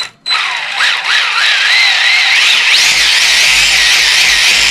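Tamiya Hotshot RC buggy's 4000kv brushless motor and gear drivetrain on full throttle. It sets in suddenly and runs loud, a whine that rises and falls in pitch with the throttle over a steady gear hiss.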